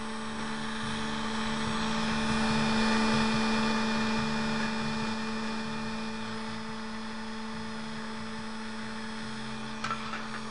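Brushless motor running steadily at speed, a steady electric hum that swells slightly a couple of seconds in and eases back, with a short tick near the end. Its rotor has been balanced with tape and it runs smoothly.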